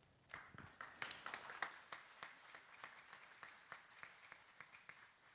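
Faint audience applause that starts just after the talk ends and thins out toward the end.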